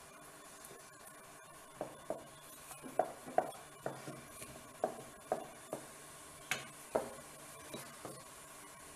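Wooden rolling pin rolling out ragi chapati dough on a round wooden board: a run of light knocks and taps, about two a second, starting about two seconds in, as the pin bumps the board on each stroke.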